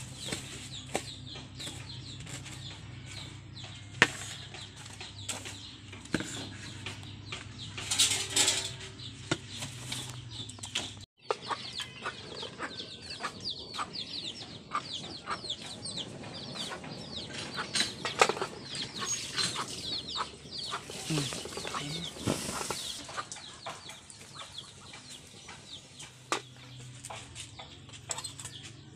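Kitchen knife chopping chillies on a wooden cutting board in quick regular taps, with chickens clucking in the background. After a sudden break about eleven seconds in, the chickens go on clucking and chirping over scattered light clicks.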